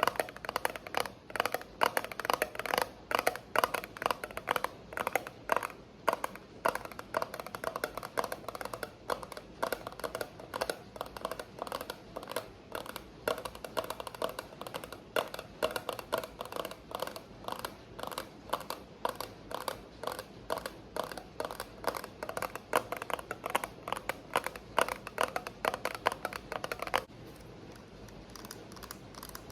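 Fast ASMR tapping on an object, several sharp taps a second, over a steady background of rain. The tapping stops about 27 seconds in, leaving only the rain.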